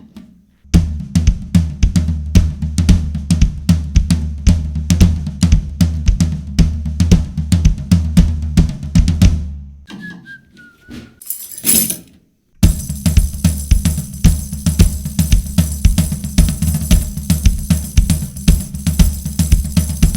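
Drum kit played in a groove, with the floor tom dampened by a Big Fat Snare Drum pad. The playing stops about ten seconds in, with a short high sound in the gap, then starts again in a second groove that is brighter with cymbals.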